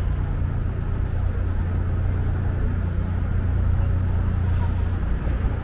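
Street traffic with a heavy vehicle's engine rumbling steadily close by, and a brief hiss near the end.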